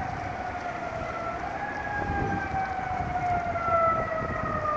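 Siren of a 2003 American LaFrance Eagle fire engine wailing while responding, its pitch gliding slowly down, rising briefly about halfway through, then falling again. A low rumble of street traffic runs underneath.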